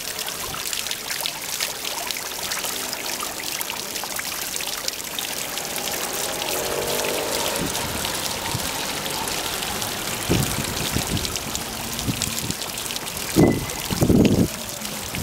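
Water from a tiered street fountain splashing steadily as it spills from the upper bowl into the basin. Near the end, two brief low rumbles stand out over the water.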